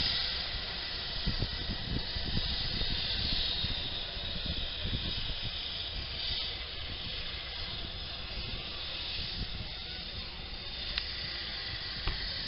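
Steam hissing from a Peppercorn A1 Pacific steam locomotive standing at a platform, stronger for the first several seconds and then easing. Wind buffets the microphone throughout.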